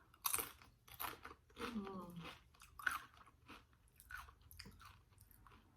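Close-up crunching and chewing of Doritos tortilla chips: a string of sharp crunches about half a second to a second apart, easing into softer chewing near the end.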